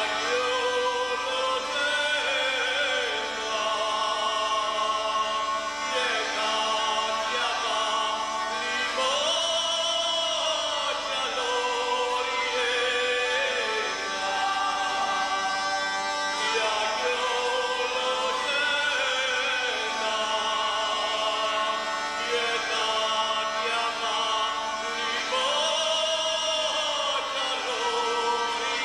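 A man sings at full voice in long arching phrases over a steady, unbroken drone, which is most likely a zampogna, the southern Italian bagpipe.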